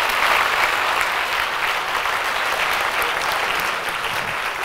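Audience applauding, many hands clapping in a steady dense patter that eases off slightly toward the end.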